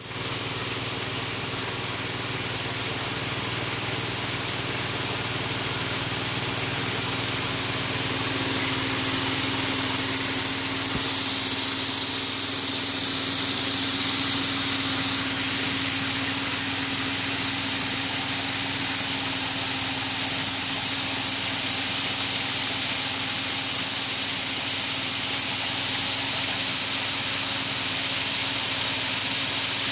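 Coffee huller machine running steadily: a loud hiss over a steady hum, building slightly over the first several seconds and then holding even.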